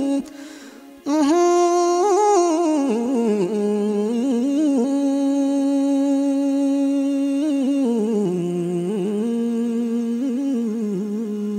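Background music: a slow, wordless vocal melody with long held, wavering notes, dropping away briefly about a second in and then carrying on.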